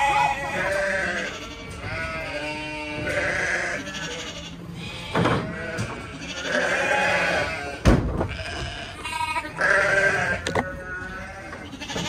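Sheep bleating over and over, overlapping quavering calls from several animals. There is a dull thump about five seconds in and a sharp knock, the loudest sound, near eight seconds in.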